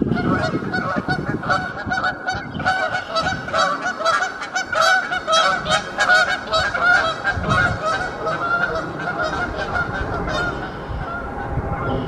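Canada geese in flight honking over and over, several birds calling at once in a rapid, overlapping series; the calls thin out and fade near the end.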